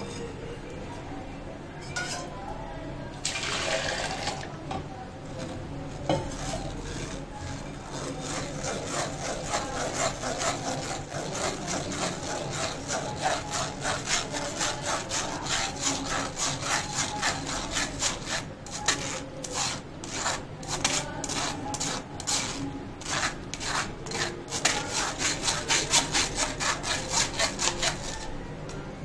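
A spoon scraping and rubbing cooked tomato pulp against a metal mesh strainer, pressing it through in quick repeated strokes, about three a second.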